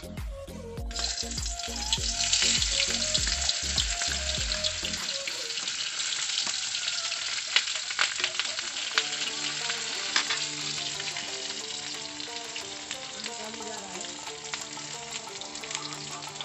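Onion hitting hot oil in a kadhai over a wood fire: a sizzle starts about a second in and keeps frying steadily, with scattered sharp pops.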